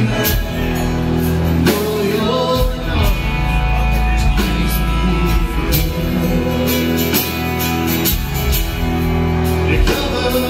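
A live rock band playing loud on stage: drums, acoustic and electric guitars and bass, with a voice singing over them.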